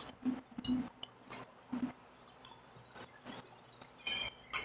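Metal fork clinking against a glass plate while food is picked up, mixed with chewing and mouth sounds: a string of short, irregular clicks.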